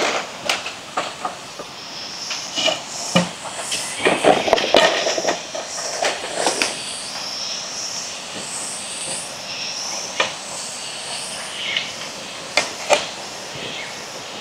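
Dry leaves and twigs crackling and brush rustling as a person crouches and moves slowly through forest undergrowth, in irregular bursts with a few sharper snaps. High chirping calls sound in the background.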